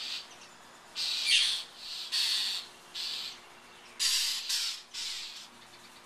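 Birds giving about six short, harsh scolding calls in quick succession: alarm calls of birds mobbing a cat.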